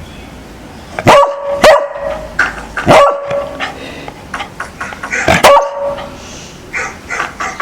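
A dog barking: four loud, sharp barks spread over the first six seconds, then a few quieter barks near the end.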